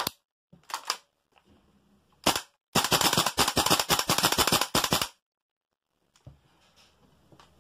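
Tokyo Marui AKM gas blowback airsoft rifle firing: a few light clicks as it is readied, a single sharp crack, then a rapid full-auto burst of about two and a half seconds, the bolt cycling with each shot, which stops abruptly.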